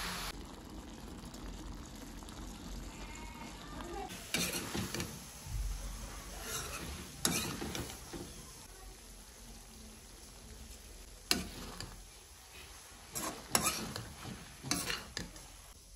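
Food being stirred in a frying pan: a utensil scraping and clinking against the pan in short, irregular strokes over a soft sizzle.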